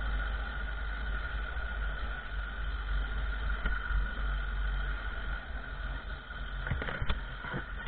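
Small 50cc motorbike riding along, its engine running steadily under heavy wind rumble on the microphone. A few knocks near the end.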